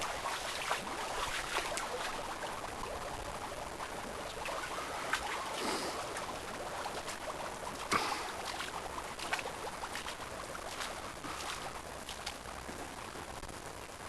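Liquefaction floodwater trickling and flowing as a steady rushing hiss, with scattered clicks and taps. The sharpest click comes about eight seconds in.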